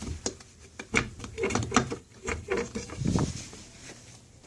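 A cat chewing and crunching a small bird it has killed: irregular sharp clicks and crackles.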